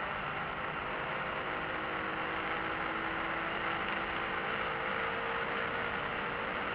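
BMW E46 M3's straight-six engine running at speed under steady noise from the tyres and wind, heard inside the cabin; the engine note climbs slowly.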